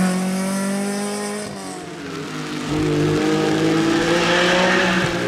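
A historic rally car's engine at full throttle on a special stage, its note climbing as it approaches; it lifts off about a second and a half in, then picks up again under hard acceleration, rising steadily in pitch.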